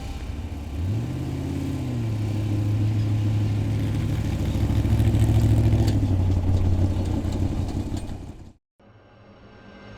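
Off-road race truck's engine revving up about a second in, then running at high, steady revs before cutting off abruptly near the end. A faint rising swell starts just after the cut.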